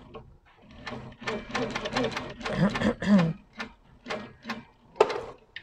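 Sitdown longarm quilting machine stitching along a quilting ruler: a low motor hum with rapid needle strokes, stitching in short runs with pauses.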